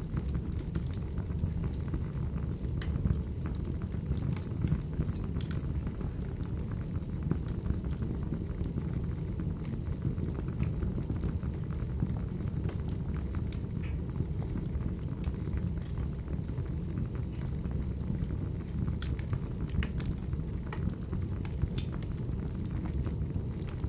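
Recorded wood fire burning: a steady low rumble of flames with irregular sharp pops and crackles every second or so.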